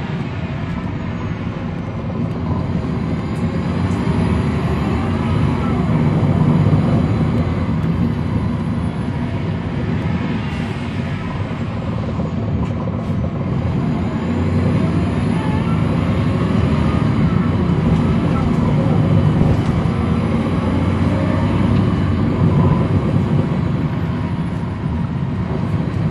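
Cummins ISL9 diesel engine of a NABI 40-SFW transit bus running under way, heard on board from the back of the bus: a steady low engine note that swells and eases a few times as the bus pulls, with a faint high whine rising now and then.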